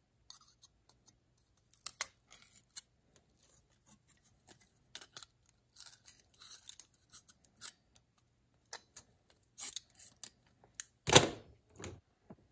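Scattered small metal clicks and scrapes as a rusty steel trap pan clamped in locking pliers is handled and worked on, with one louder clank about eleven seconds in.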